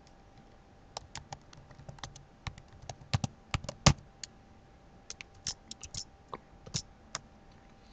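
Typing on a computer keyboard: irregular keystrokes in short runs, starting about a second in.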